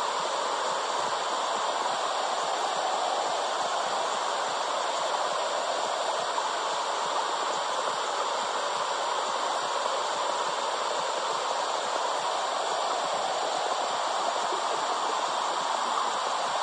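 Steady whooshing hiss of a womb-sound recording made to soothe babies, even and unbroken, with no beat or pulse in it.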